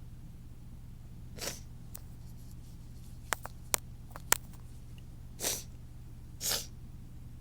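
A person's sharp, breathy intakes building toward a sneeze that stays stuck: one short breath about a second and a half in and two more near the end, with four sharp clicks in between, over a steady low hum.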